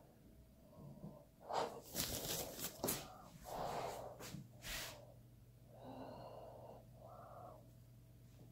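A person breathing audibly close to the microphone in irregular puffs, with a few sharp rustles and knocks from the handheld phone being moved in the first half.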